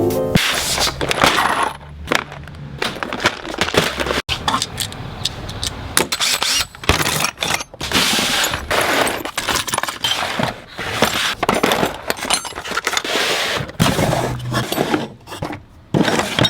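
Irregular clattering, clinks and scrapes of tools and hardware being handled and knocked about, with no steady tone.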